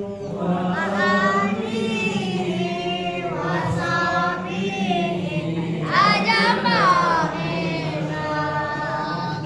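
Congregation chanting together in unison, many voices holding long notes over a steady low drone. About six seconds in, a higher voice rises above the rest with gliding notes.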